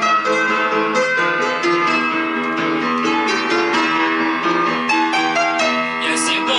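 Instrumental music: the introduction of a song, a melody of separate notes over held chords, with no singing.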